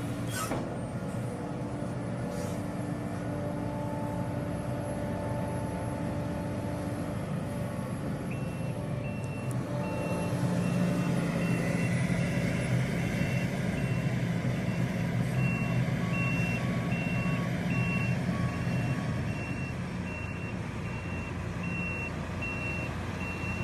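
Heavy earthmoving machinery's diesel engine running steadily, working harder from about ten seconds in. A backup alarm beeps repeatedly, about two beeps a second, from about a third of the way in, as a machine travels in reverse.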